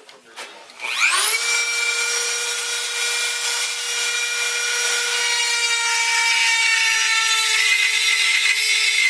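Handheld high-speed rotary grinder spooling up about a second in to a steady high whine, its bit grinding out a metal engine mount; the pitch sags a little near the end as the bit bites harder. A few light handling clicks come before it starts.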